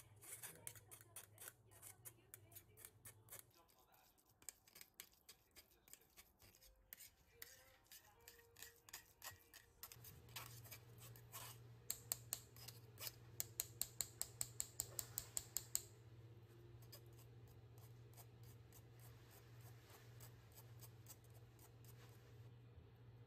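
A spoon scraping and pressing hard-boiled egg through a fine wire-mesh sieve, a quick run of scratchy strokes. Past the middle the strokes grow louder and regular, about three or four a second, then die down to faint scraping. A steady low hum comes in about halfway.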